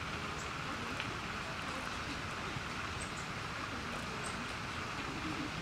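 Steady outdoor background hiss, even and unbroken, with three faint short high chirps scattered through it.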